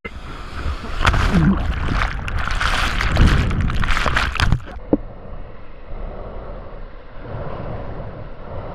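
Ocean surf rushing and sloshing around a GoPro camera, loud for about four and a half seconds, then cutting suddenly to a quieter, duller rush of water and wind.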